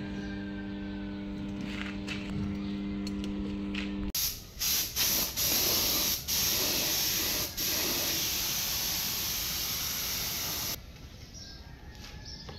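A steady hum for about four seconds cuts off suddenly. Then a compressed-air paint spray gun sprays: a loud hiss in a run of bursts, broken by short gaps where the trigger is let go, ending at about eleven seconds.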